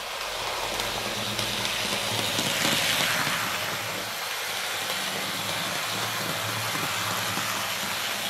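Märklin H0 model MaK diesel locomotive running along the track: a steady engine-like drone over rolling noise, a little louder about three seconds in.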